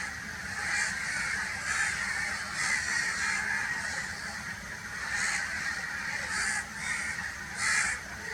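Crows cawing: a series of short, harsh caws, roughly one a second, the loudest near the end.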